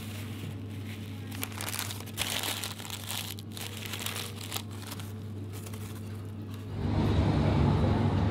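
Paper being crumpled and crinkled in the hands, in irregular crackly bursts over a steady low hum. Near the end a louder low rumble comes in.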